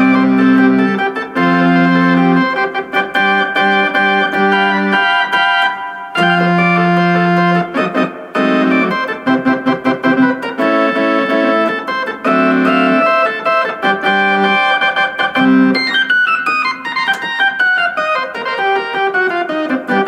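Vintage Philips Philicorda electronic organ being played: held chords changing every second or two, then a fast run of notes descending in pitch over the last four seconds.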